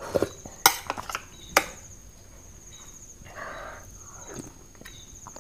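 Close-miked eating: a spoonful of rice noodles and squid salad taken into the mouth and chewed, with several sharp lip smacks and mouth clicks in the first second and a half and a short slurp of noodles about three and a half seconds in.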